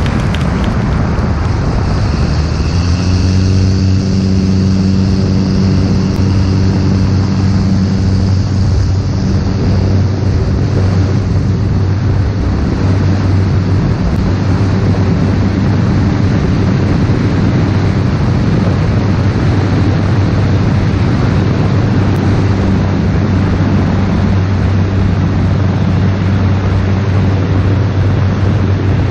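Single-engine light aircraft's piston engine and propeller coming up to full power for a touch-and-go takeoff. The engine note rises about two to three seconds in and then holds steady through the takeoff run and liftoff, over a constant rush of air.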